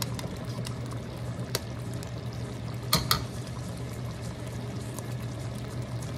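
Thick cream sauce of a chicken pastel simmering uncovered in a wok, bubbling steadily over a constant low hum, with a few sharp clicks about a second and a half and three seconds in.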